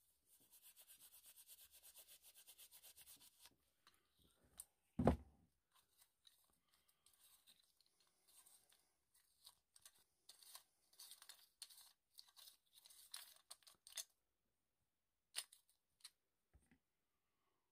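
Steel wool scrubbing the brass body of an Auto-Lite carbide miner's lamp in rapid, even strokes for the first few seconds. A single thump about five seconds in is the loudest sound, followed by scattered scraping and clicks as the lamp's metal parts are handled.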